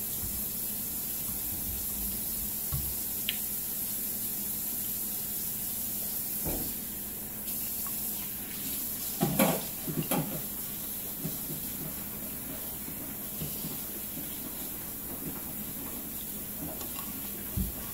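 Person eating noodles from a bowl with chopsticks: soft slurping and eating sounds, with two louder slurps about nine and ten seconds in, over a steady hiss.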